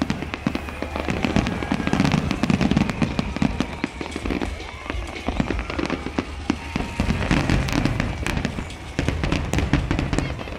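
Aerial firework shells bursting in quick succession: a dense run of bangs and crackles with a low rumble underneath.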